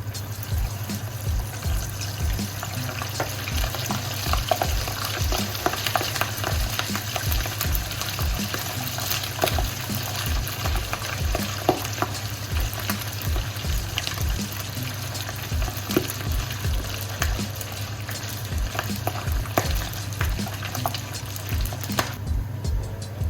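Chopped pork sisig deep-frying in very hot oil: a steady sizzle dense with crackling pops.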